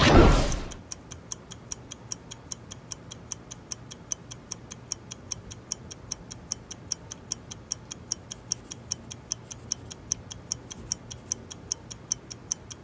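A short, loud rush of noise at the very start, then a clock ticking steadily, about four ticks a second.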